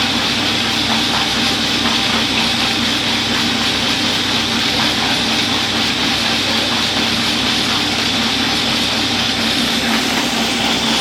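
Petha washing machine running steadily: a constant motor hum with a fast low throb under a steady rushing hiss, plausibly water being churned.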